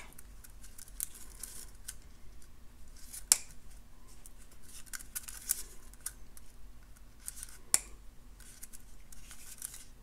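Jewelry flush cutters snipping lengths of wire off a spool: a series of sharp snips a second or two apart, two of them louder than the rest, with light rustling of the wire and spool in between.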